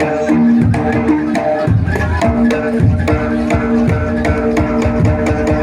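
Live jaranan ensemble music: drums beating a steady rhythm under sustained melodic notes, with sharp metallic clicks on top.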